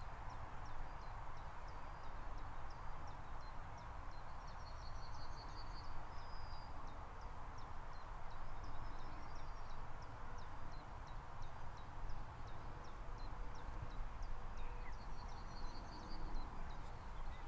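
Birds chirping repeatedly with short high calls, broken by a brief trill about five seconds in and again near the end, over a steady low outdoor background rumble.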